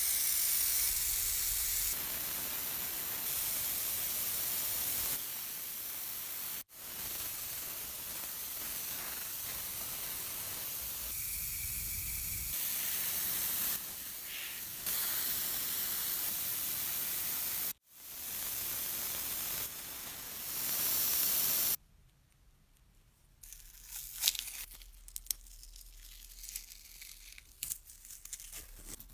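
Steady spraying hiss in several stretches, broken by two brief gaps. From about 22 seconds in it gives way to the quieter crinkling and tearing of masking tape being peeled off a freshly painted metal part.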